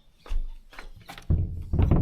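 Music with sharp percussive knocks and deep thumps, loudest in the second half.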